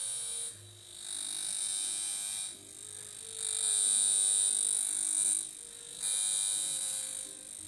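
Darsonval high-frequency glass comb electrode buzzing with a high-pitched whine as it is drawn over the scalp at raised power. The whine swells and drops in stretches of one to two seconds and squeals more as the comb comes closer to the skin.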